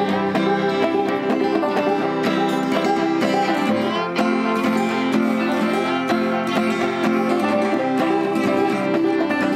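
Acoustic string trio playing a bluegrass-style tune: banjo picked, acoustic guitar strummed, and fiddle bowed together at a steady level.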